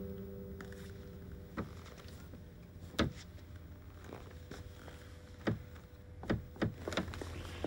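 Scattered clicks and knocks of a glass door's handle and lock being tried by hand, the door not opening, coming quicker toward the end. The last notes of an acoustic guitar die away at the start.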